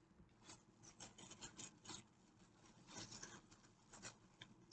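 Faint, irregular rustling and light clicks of toys and a bag being handled.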